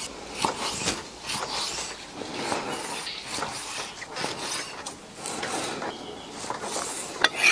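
Chinese cleaver slicing pork on a round wooden chopping board: irregular short cuts and knocks of the blade against the wood, with the blade scraping through the meat.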